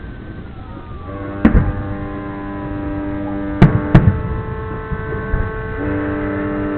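Several ship horns sounding steadily together from about a second in, one tone changing near the end. A few sharp firework bangs cut through them, and a falling whistle is heard in the first second.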